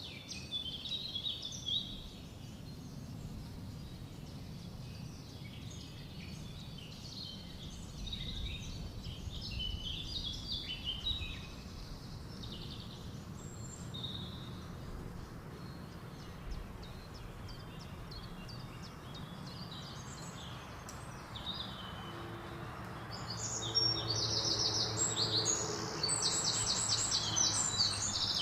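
Small birds chirping over a low, steady background rumble. Near the end the birdsong grows louder and busier, with fast, rapid trills.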